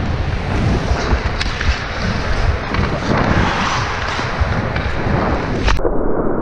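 Ice skates scraping and gliding on a rink, with wind rushing over a head-mounted camera's microphone. A sharp crack comes near the end as the hockey stick shoots the puck.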